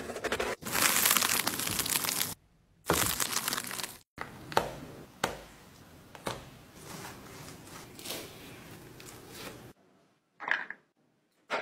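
A whole jackfruit being cut and pulled apart: a knife blade working through the spiky rind, then the stringy flesh and bulbs tearing as gloved hands pull them free and press the seeds out. The sound comes in several short stretches with abrupt cuts between them.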